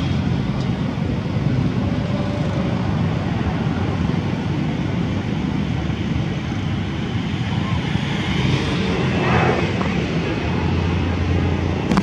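Steady low rumble of outdoor background noise, swelling briefly about nine seconds in.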